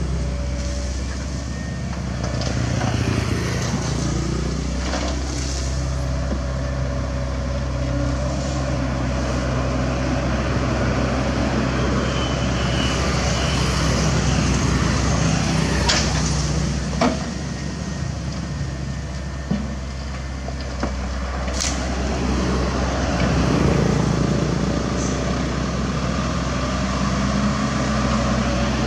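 CAT 305.5E2 mini excavator's diesel engine running steadily as it digs and swings loads of soil, with a few sharp knocks about halfway through as dirt and rocks fall.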